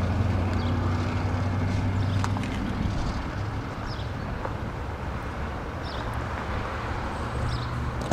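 Datsun on-Do's four-cylinder petrol engine idling steadily after a remote start; its hum drops a little about three seconds in. A sharp click near the end as the driver's door handle is pulled.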